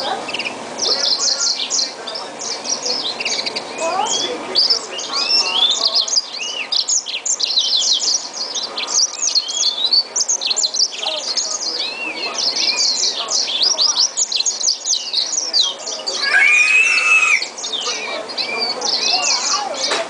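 Green singer (yellow-fronted canary) × yellow canary mule singing a long, fast, unbroken song of high twittering chirps and trills, with a louder, lower warbled phrase near the end.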